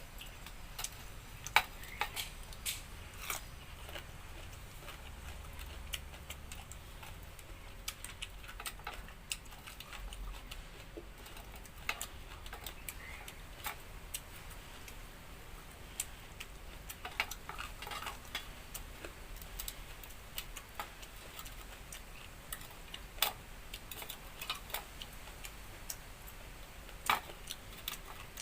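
Eating sounds: irregular soft clicks and smacks of someone eating a meal by hand, a few sharper clicks standing out among them.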